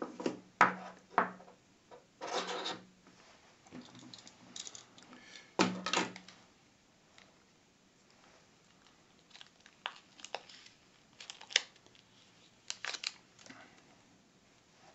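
Hands handling small objects on a wooden desk: scattered clicks, knocks and short rustles as a small cardboard box and the camera are set down and a coiled USB cable is unwound. The loudest knock and rustle comes about six seconds in; the later handling is lighter clicks.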